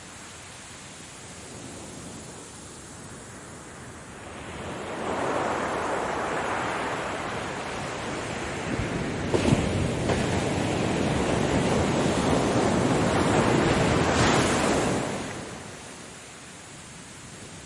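Ocean surf: a wave builds, breaks with a crash about halfway through, and washes up the shore before falling away to a softer wash near the end.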